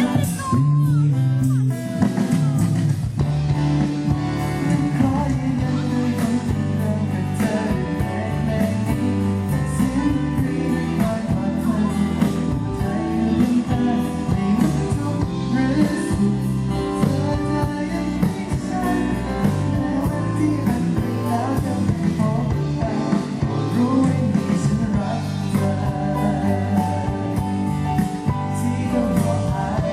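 Live band playing a Thai pop-rock song with a singer, electric guitar, bass and drums, heard through a large PA system at a sound check.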